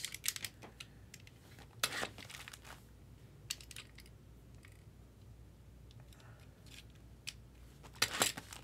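Scattered small clicks, scrapes and rustles of sealed trading-card boxes and their plastic wrap being handled and cut open with a blade, mostly faint, with a few sharper clicks near the end.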